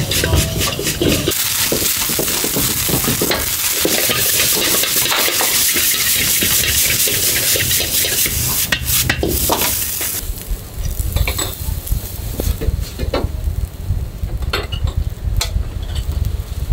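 Fried rice sizzling in a wok as it is stirred and tossed, the metal ladle scraping and striking the wok over and over. About ten seconds in the sizzle stops, leaving a low rumble and a few sharp clinks of the ladle as the rice is scooped onto a plate.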